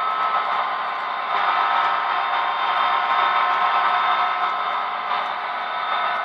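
Model-railway grain train of covered hopper cars rolling past close by: a steady whirr of the little wheels running on the track, with a faint steady whine.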